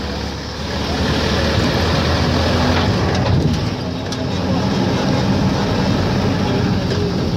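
A running motor vehicle: a steady low engine hum under continuous road noise.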